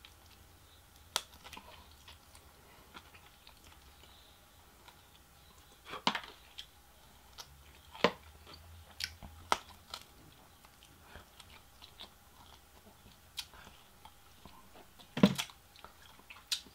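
Close-miked eating sounds: a person gnawing and chewing crispy Korean fried chicken off the bone. Scattered sharp crunches and mouth clicks come between quiet stretches, the loudest near the end.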